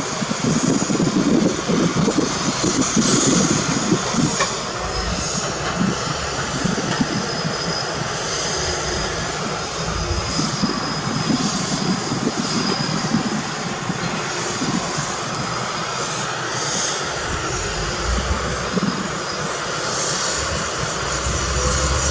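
Diesel engines of heavy earthmoving machinery running steadily, a dense continuous engine noise that is a little louder for the first few seconds.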